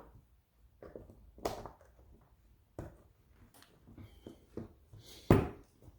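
Scattered knocks and clicks of garage door spring hardware being handled and set down, with one louder knock about five seconds in.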